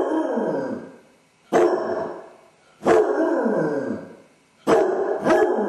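Basset hound baying: loud barks that each trail off into a falling howl, about one every second and a half. This is the distress calling of a dog left home alone, which the owner takes for separation anxiety.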